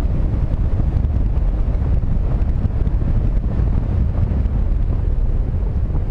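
Wind rushing over the microphone of a camera on a paraglider pilot in flight: a steady, loud, low-pitched buffeting from the airspeed, with no breaks.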